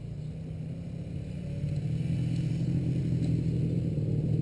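Off-road motorcycle engines running as the bikes come down the track, a steady low engine note growing louder from about a second and a half in as they approach.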